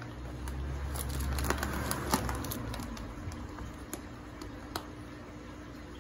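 Plastic bag being handled, rustling and crinkling, with scattered light clicks. The rustle is fullest in the first two seconds, with a low rumble under it, then it thins out.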